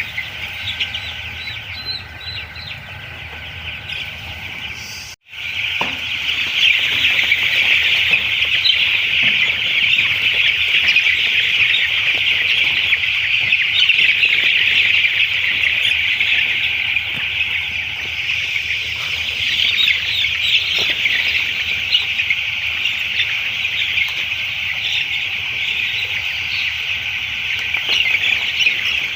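A flock of three-day-old chicks peeping all at once: a dense, continuous chorus of high chirps. It cuts out for an instant about five seconds in and comes back louder.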